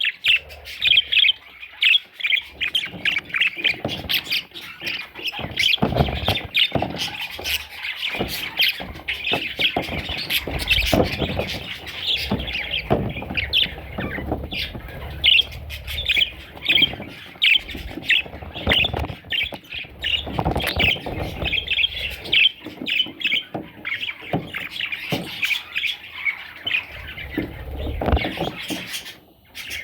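A group of budgerigars chirping and chattering nonstop in quick, busy squawks, with scattered low knocks and rustles underneath.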